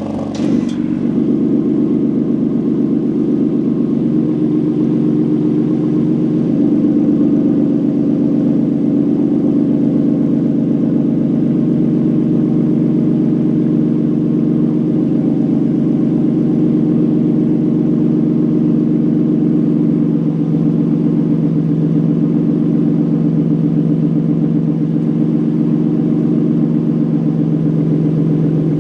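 Stage 3 tuned BMW M3 engine running at a steady, loud fast idle just after a cold start.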